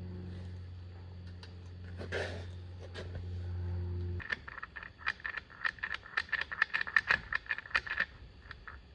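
A steady low hum for the first four seconds or so, then a run of light metallic clicks and clinks, several a second, from tools and parts as the side cover is fitted to the Yamaha AG200 engine case.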